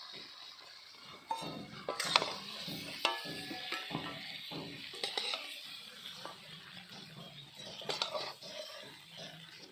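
A metal spoon knocking and scraping against cookware during stirring, with scattered sharp clinks.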